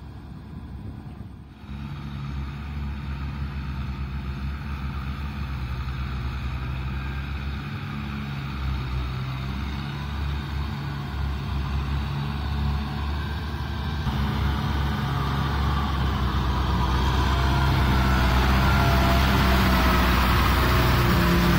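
Kubota M6040SU tractor's diesel engine running under load as the tractor churns through deep paddy mud. It gets louder about a second and a half in and again over the last several seconds, when a wavering whine joins it.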